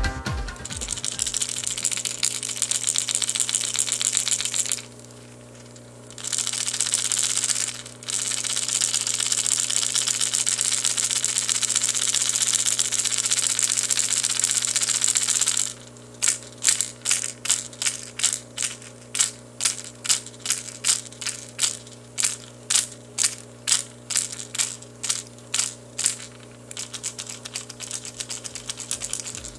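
Megabass Giant Dog-X topwater lure shaken by hand, its internal rattle clattering. For the first half it shakes fast and without a break, except for two short pauses. After that it comes in separate shakes, about two a second, that grow fainter near the end.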